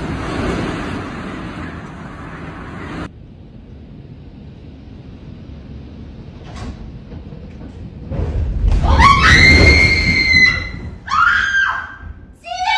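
A person screaming: a long high scream that slides up and holds, then shorter cries, over a loud deep rumble that starts just before it. Earlier, a steady noisy roar cuts off abruptly.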